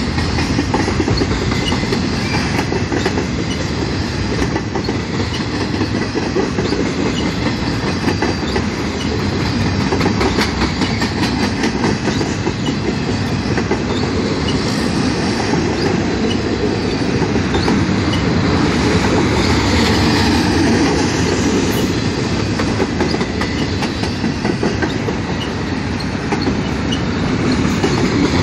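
Container train's cars rolling past: a steady rumble of steel wheels on rail, with clickety-clack over the rail joints.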